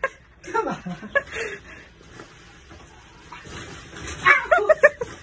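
A person's voice chuckling and laughing softly, in short bursts about a second in and again near the end.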